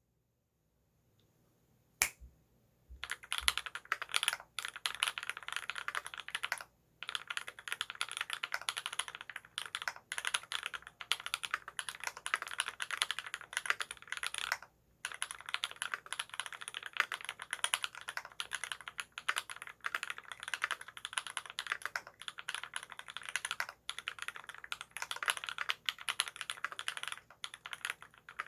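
Fast, continuous typing on a custom mechanical keyboard with tactile Holy Panda switches on a brass plate, lubed with Krytox 205g0 and dampened with Thinsulate, the keystrokes clacking in quick succession. It starts about three seconds in, after a single sharp click, with brief pauses near seven and fifteen seconds.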